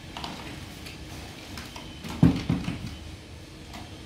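A sharp knock about two seconds in, followed by a few lighter knocks: hard plastic banging on a baby walker.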